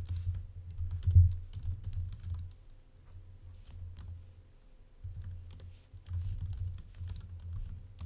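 Typing on a computer keyboard: irregular runs of keystroke clicks with dull thumps, busiest at first and again in the second half, with a lighter stretch in the middle.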